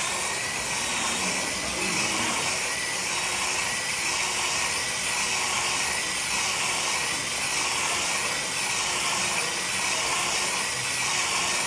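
Steady whir of a power tool running while an abrasive pad sands the surface of a bowling ball, with an even hiss from the pad.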